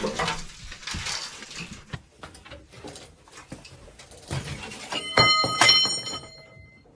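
Metal clanks and knocks. About five seconds in, a steel part is struck and rings out with several clear tones, dying away over a second or so.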